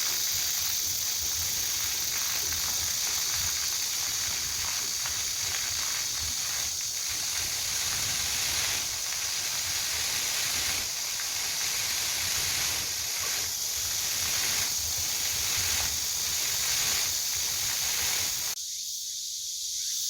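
A chorus of summer cicadas keeps up a steady, high, hissing drone. Underneath it there is a low rumble on the microphone, which drops away near the end.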